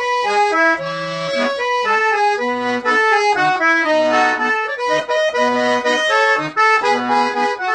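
Piano accordion playing an instrumental passage between verses: a moving melody on the keyboard side over low bass notes, with no singing.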